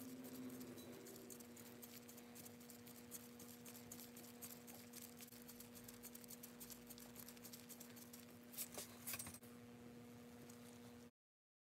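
Near silence: faint ticks and light rubbing as a small brass fitting is worked into a steel smoke box by gloved hands and a ring spanner, with a short cluster of sharper clicks about three-quarters of the way through. A steady low hum underlies it, and the sound drops out completely near the end.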